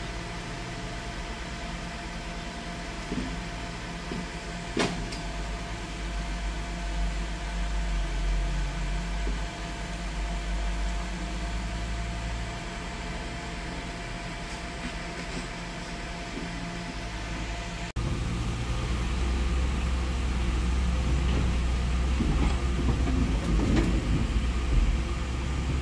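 Truck engine running steadily with a low rumble and a single click about five seconds in. The sound changes suddenly about 18 seconds in, after which the low rumble is louder.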